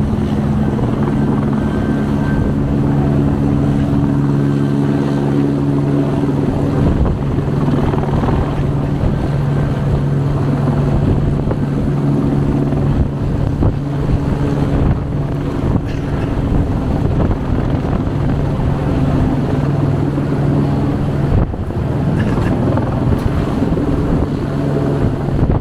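Helicopter hovering overhead, its rotor and engine giving a steady, loud drone.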